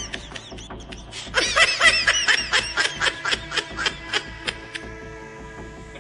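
A cartoon character's high-pitched snickering laugh, a quick run of 'hee-hee' pulses that starts about a second and a half in and fades out, over faint background music.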